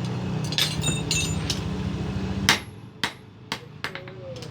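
Hammer blows on steel at the anvil, about nine irregularly spaced strikes, a few ringing briefly; the loudest comes a little past halfway. A steady low hum runs underneath and cuts off at that loudest blow.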